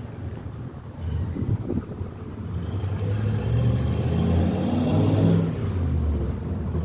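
A low engine rumble, like a motor vehicle running nearby, growing louder from about a second in and easing off slightly near the end.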